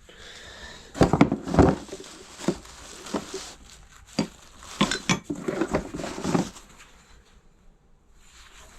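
Hard objects clinking and knocking against each other as they are picked up, moved and set down: a string of sharp knocks for several seconds, dying down to light rustling near the end.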